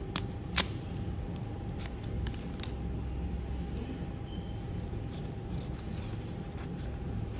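A foil sachet of alcohol lens-cleaning wipe torn open, two sharp snaps in the first second, the second the loudest, then faint crinkling as the wet wipe is pulled out and unfolded. A steady low rumble runs underneath.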